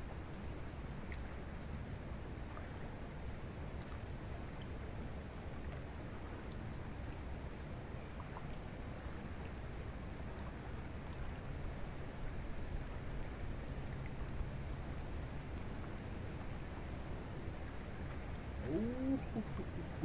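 Steady low outdoor rumble with a few faint ticks. A brief pitched call that rises and falls comes near the end.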